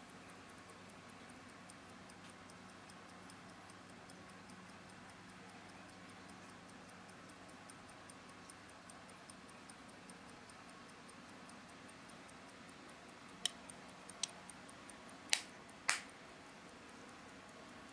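Hand-wound mechanical pocket watch ticking faintly in rapid, even beats. Near the end, four louder sharp clicks come as the polished steel case is handled.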